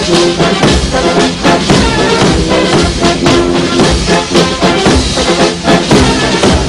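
Military brass band playing a march, brass over a steady drum beat.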